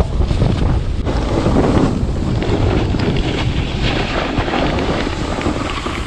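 Wind buffeting the bare, uncovered microphone of a GoPro Hero 7 Black at snowboarding speed: a loud, steady rumble with hiss over it. This is the wind noise that a foam wind cover is meant to cut.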